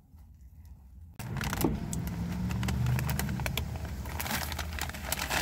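Paper fast-food bag rustling and crinkling as it is handled, starting about a second in, over a low steady hum.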